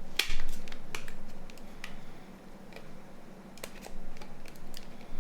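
Scattered plastic clicks and taps of a Nokia 9210 communicator being handled while trying to power it on to test whether its battery is still charged; the sharpest click comes just after the start.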